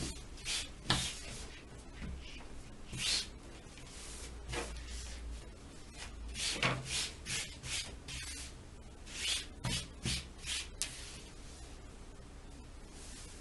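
Hands smoothing and shifting a length of fabric on a table: a run of short rustling swishes, with a sharp click near the end.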